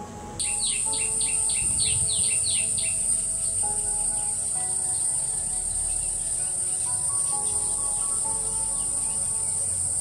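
Steady high-pitched insect drone that cuts in about half a second in, with a quick run of short descending bird chirps over the first three seconds.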